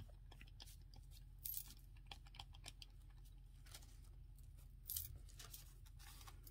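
Faint rustling and light handling noises of a clear plastic sheet and a printed paper napkin, with a few short crackles, about a second and a half in and near the five-second mark. A low steady hum runs beneath.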